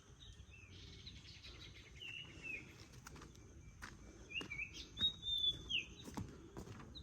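Birds singing: a handful of short whistled phrases that slide up and down in pitch, the loudest run about two-thirds of the way in, over a faint steady high tone.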